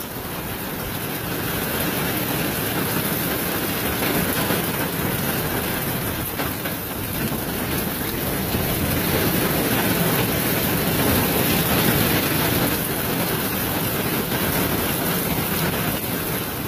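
Heavy rain and hail pelting down in a thunderstorm: a dense, steady patter of stones and drops striking hard surfaces.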